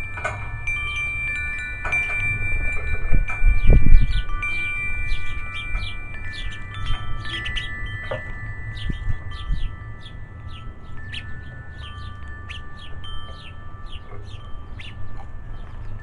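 Metal tube wind chimes ringing, several long overlapping tones that fade through the first half. Small birds chirping rapidly, more so in the second half. A low rumble of wind on the microphone swells about four seconds in.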